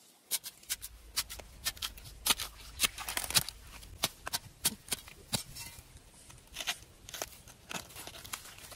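A knife cutting and peeling the husk sheaths off a fresh bamboo shoot: a run of irregular crisp snaps and cracks, a few each second, thickest about three seconds in.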